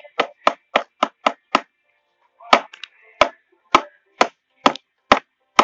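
Pen tip jabbing at ice frozen in a small bowl to break it: a quick run of sharp taps, about four a second, then after a short pause slower taps, about two a second.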